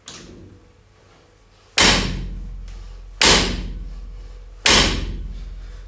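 Barbell loaded with 20 kg rubber bumper plates hitting the lifting platform as deadlift reps are set down, three times about a second and a half apart, each a sharp thud with a slowly fading ring.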